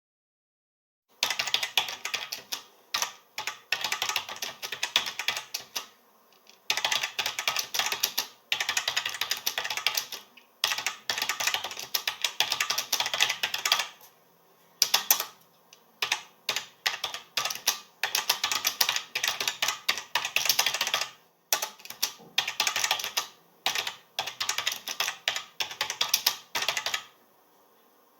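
Typing on a computer keyboard: rapid runs of key clicks in bursts of a few seconds, with short pauses between them, starting about a second in.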